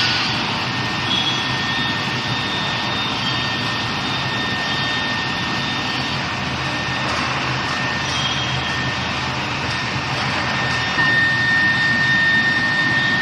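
Welded-pipe induction hardening line running: a steady industrial machinery noise with a steady high whine that grows louder about eleven seconds in.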